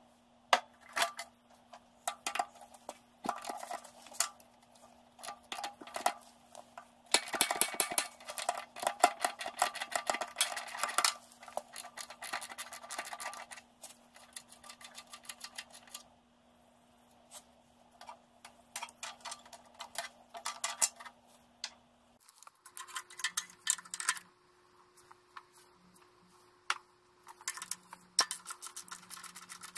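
Hand tools clicking and rattling on the tractor's metal fittings and fasteners while parts around the voltage regulator are worked loose, in irregular bursts of sharp clicks with a dense flurry about a quarter of the way in. A faint steady hum sits underneath and shifts in pitch about two-thirds of the way through.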